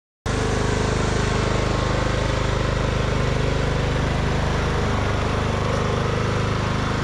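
Cub Cadet LT2 ride-on lawn mower's engine running steadily. It cuts in abruptly a moment in.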